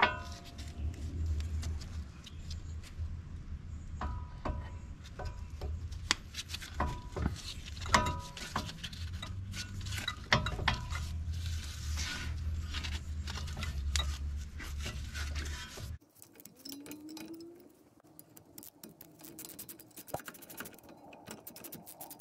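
Sharp metal clinks and knocks of brake parts being handled as a brake caliper is fitted back over new pads and a new rotor. Near the end, quick regular clicks of a ratchet wrench turning a caliper bolt.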